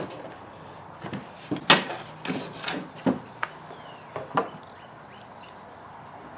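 Plastic parts of a car side mirror assembly handled during disassembly: a run of about eight sharp clicks and knocks over the first four and a half seconds, then only faint background.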